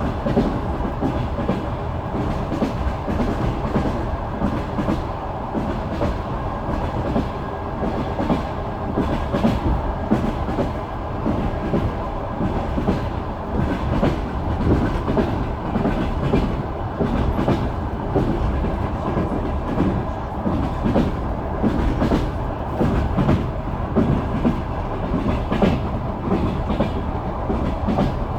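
Wheels of an express passenger train clattering over the rail joints, a run of irregular clacks over the carriage's steady low rumble, heard from inside the carriage.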